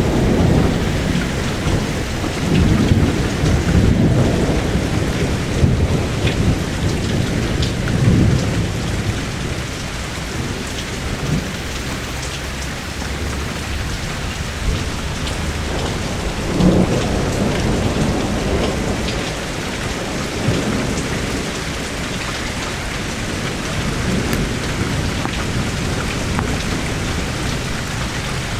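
Steady rain with repeated low rumbles of thunder. The rumbles are heaviest in the first few seconds and come again a little past halfway.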